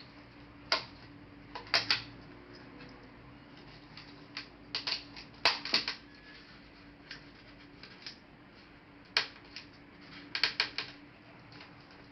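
Laptop parts being handled and taken apart: sharp clicks and taps, some single, some in quick clusters of three or four.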